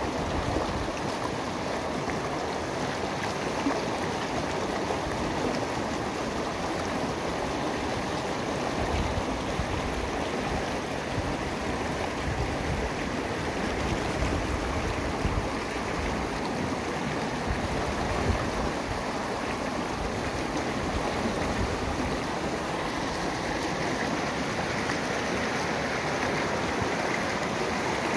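Swollen, muddy stream rushing over rock ledges in small cascades, a steady, unbroken rush and splash of water.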